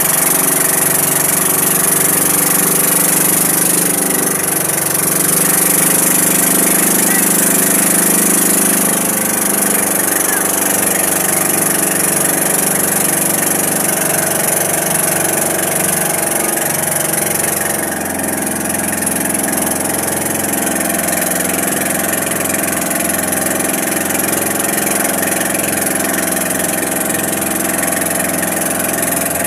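Boat engine running steadily, its note shifting and getting slightly quieter a little past halfway through.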